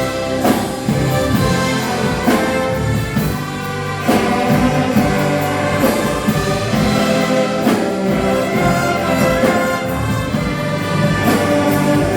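Orchestra with brass playing held chords, with new notes entering every second or two.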